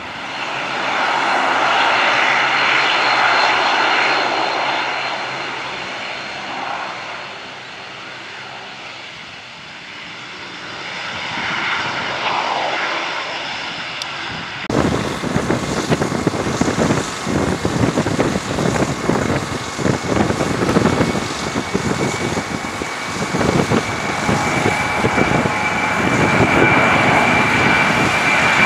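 De Havilland Canada Dash 8 turboprop's engines and propellers running as it rolls along the runway, swelling, fading and swelling again. Then, after a cut, a twin-engine jet airliner climbs away overhead after takeoff: a rough, gusty jet rumble with a steady high whine that sets in about two-thirds of the way through and rises slightly.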